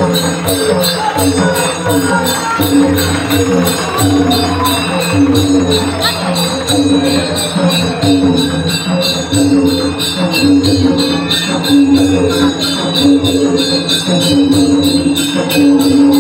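Dholak drums played live, with jingling percussion keeping a steady, even beat. Pitched lines rise and fall in the middle range throughout.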